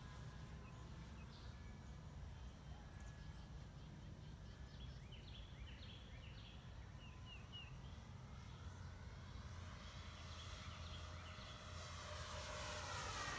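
Electric motor and propeller of a Flightline F8F Bearcat 1200mm radio-controlled model warbird at full throttle. It is faint at first, grows louder from about two-thirds in as the plane comes in low, and its tone sweeps as it passes near the end. Birds chirp in short calls in the middle, over a steady low rumble.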